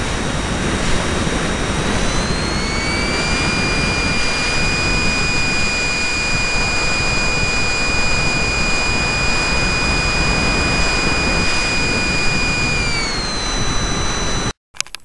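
Whine of a radio-controlled model plane's electric motor and propeller in flight, its pitch rising about two to three seconds in, holding steady, then dropping again near the end. A heavy low rush of wind on the microphone runs under it, and the sound cuts off abruptly just before the end.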